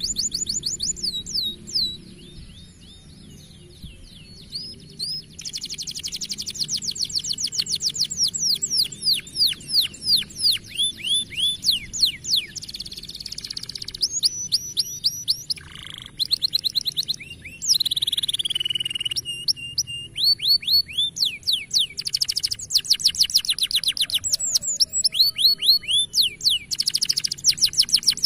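Canary singing a long, fast song of rapid downward-sweeping trills and rolls, repeated in quick series, with a quieter stretch a few seconds in.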